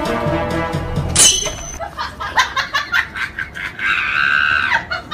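Background music that cuts off about a second in with a sharp high-pitched sound effect, followed by a run of quick laughing sounds and a held high cry near the end.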